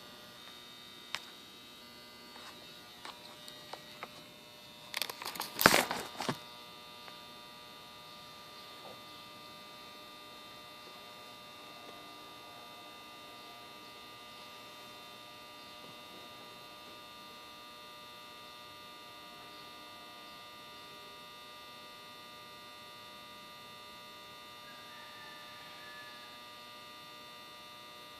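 Steady electrical hum with several high whining tones, and a brief clatter of objects being handled about five to six seconds in, preceded by a few light clicks.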